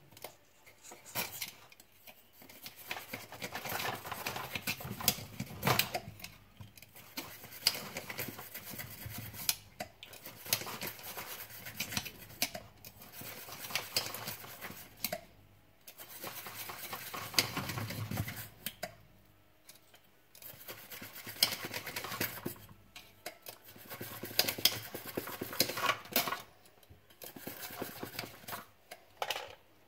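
Hand work on the plastic and metal parts of a cordless stick vacuum's motor and fan unit: irregular clicks, scrapes and rubbing in bursts of a few seconds, with short pauses between them.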